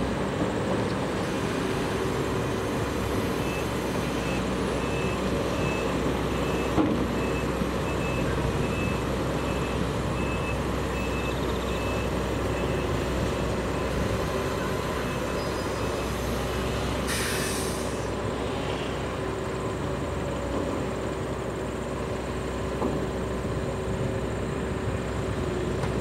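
Heavy logging trucks' diesel engines running steadily as loaded trucks pull away. A reversing alarm beeps about one and a half times a second from a few seconds in until about halfway, and a short burst of air hiss comes about two-thirds of the way through.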